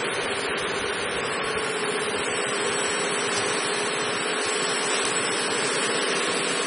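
Auger powder filling machine running with a steady hum and hiss.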